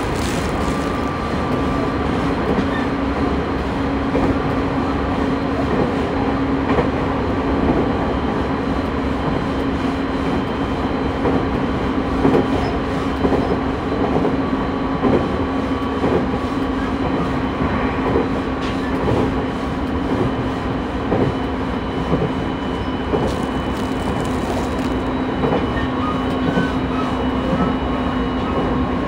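JR East 209 series 2100 subseries electric train running at steady speed: a steady hum from the running gear, with the wheels knocking over rail joints every second or two.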